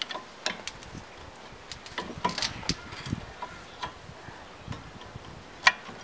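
Large flat-blade screwdriver prying at a rear brake caliper, the steel tip clicking and scraping against the caliper and pad in irregular taps, the sharpest a little before the end.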